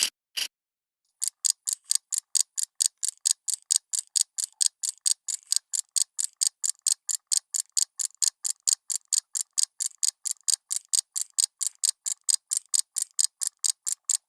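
Clock ticking in crisp, evenly spaced ticks, about five a second, starting about a second in after a brief pause. A slower ticking stops just before that pause.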